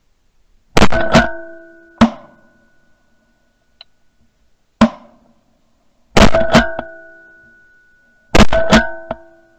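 Shotgun shots picked up by a camera mounted on the gun: nine sharp reports in quick groups of three, one, two and three, each followed by a brief ringing tone.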